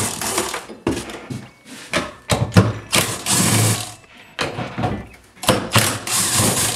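Cordless drill/driver with an 8mm socket, run in several short bursts of whirring as it backs bolts out of a 4L60E transmission valve body.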